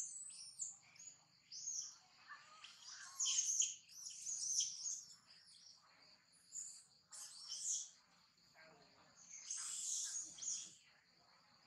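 Small birds chirping in irregular bursts, loudest about three seconds in and again near the end, over a faint steady high-pitched hum.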